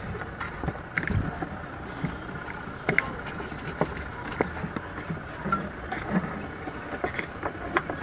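Scattered clicks and knocks of a hand working a washing machine's loose rubber drive belt off its pulleys, over a steady low background hum; a louder cluster of knocks comes at the end.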